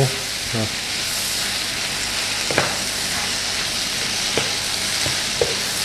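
Shredded napa cabbage, carrot and shiitake stir-frying in a nonstick pan: a steady sizzle while a wooden spatula tosses the vegetables, with a few light knocks of the spatula against the pan.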